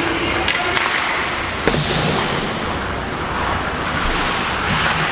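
Steady wash of ice hockey play in a rink, with two sharp clacks a little under a second apart near the start.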